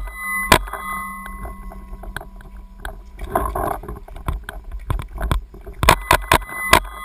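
Paintball marker firing: a single shot about half a second in, then a rapid burst of about five sharp pops, four to five a second, near the end, over a low rumble of wind and handling.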